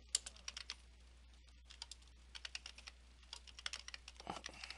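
Typing on a computer keyboard: quick runs of light keystroke clicks, with a short pause about a second in.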